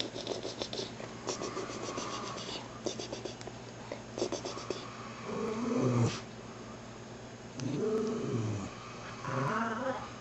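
Baby coos and vocalises three times in the second half, each a short sound that rises and falls in pitch, while sucking on an adult's finger. Light wet clicks and crackles come before the coos.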